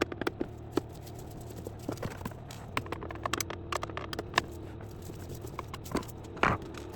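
Screwdriver taking small screws out of an induction hob's plastic underside: an irregular string of light clicks and taps, with a louder knock near the end.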